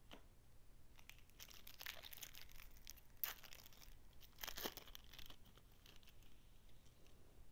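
Wrapper of a Topps baseball card pack being torn open and crinkled: a few seconds of tearing and crackling that are loudest about three and four and a half seconds in.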